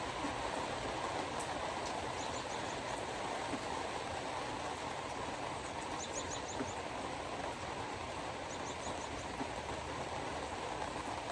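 Steady rushing noise of hard rain. Three short runs of quick high chirps come through it, about two, six and nine seconds in.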